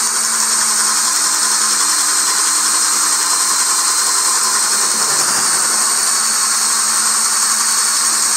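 DeWalt Atomic 20-volt brushless drill running steadily in low gear (speed 1) under heavy load, pulling a 1-1/8-inch speed bit through two stacked pressure-treated 2x4s. In this slow, high-torque gear it bores on without stalling, where in speed 2 it could not get through.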